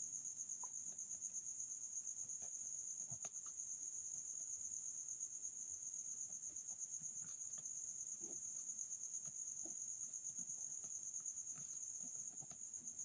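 Cricket chirping in a steady, evenly pulsing high trill, with a few faint scattered taps underneath.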